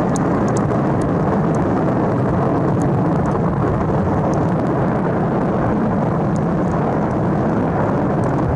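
Steady deep roar of the erupting Cumbre Vieja volcano, with faint sharp crackles scattered through it.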